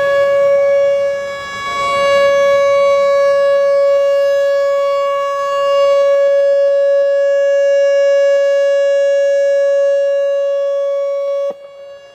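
Whelen WPS-4004 rotating electronic warning siren sounding a steady tone, swelling and fading as its speaker head turns, then cutting off suddenly near the end.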